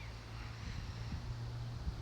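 Outdoor city background: a steady low rumble of breeze on the microphone and distant hum, with a soft low thump near the end.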